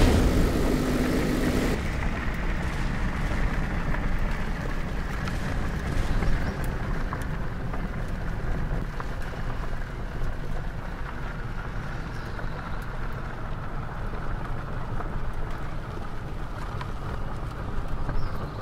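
Motor vehicle running steadily: a continuous low rumble with a hiss over it. A steady hum stops about two seconds in.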